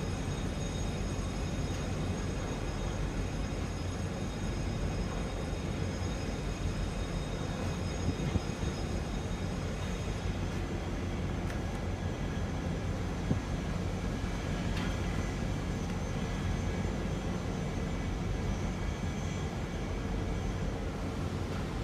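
Steady low mechanical drone with faint high whining tones that fade about ten seconds in, and two light knocks about eight and thirteen seconds in.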